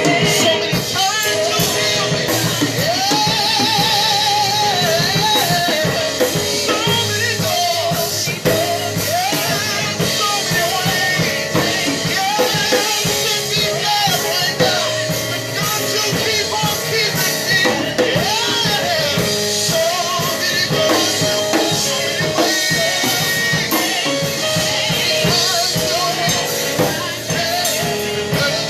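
Worship music: a vocalist singing with vibrato over a band with drum kit and keyboards.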